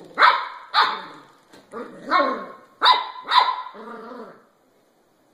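A puppy barking: about six short, high barks in quick succession, each dropping in pitch, the last one drawn out a little longer.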